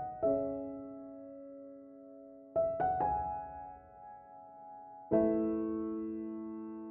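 Slow, gentle solo piano background music: a few notes and chords struck now and then, each left to ring and fade out.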